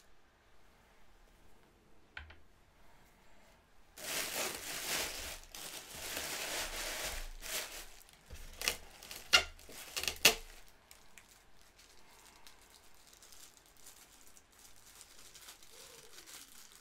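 Packaging being unwrapped: about four seconds of crinkling and rustling starting about four seconds in, then a few sharp crackles, then quiet.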